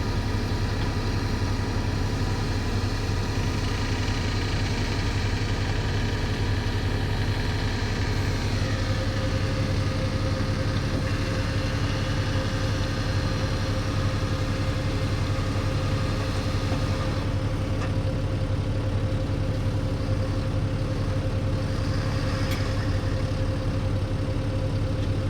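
Kobelco 220 excavator's diesel engine running steadily under work, with a strong low hum. A steady higher tone joins about eight seconds in.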